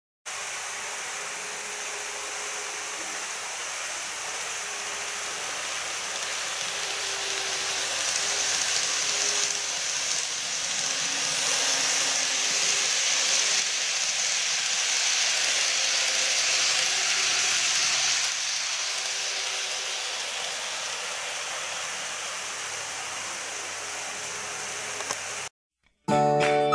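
N-gauge model electric train running on plastic-roadbed sectional track: a steady hiss of wheels on the rails with a faint motor hum. It grows louder as the train passes close and then eases off, and it cuts off shortly before the end.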